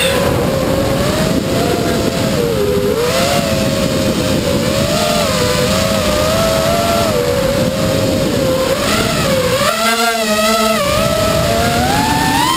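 Radio-controlled model aircraft's motor and propeller heard from its onboard camera in flight: a steady whine that rises and falls in pitch with the throttle, over heavy wind rush on the microphone. About ten seconds in the wind rush briefly drops and the whine rises, then climbs higher again near the end.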